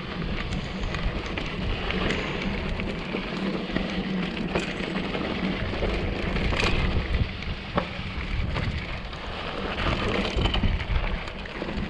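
Mountain bike (a 2014 Giant Trance 3) riding over a rocky, gravelly desert trail: the tyres crunch over loose stones, with many quick rattles and knocks from the bike, and a low rumble of wind buffeting the microphone.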